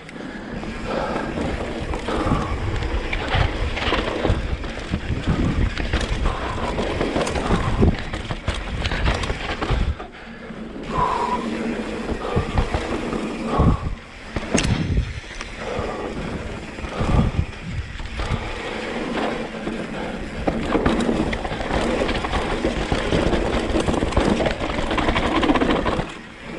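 Yeti mountain bike descending dry dirt singletrack: knobby tyres rolling and crunching over the dirt and the bike rattling and knocking over bumps. The noise eases briefly a few times, about ten and fourteen seconds in and near the end.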